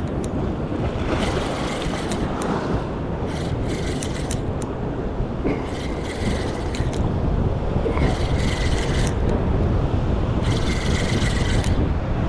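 Spinning reel being cranked in short bursts of about a second, five times, as a hooked fish is wound in between pumps of the rod. Steady wind noise on the microphone runs underneath.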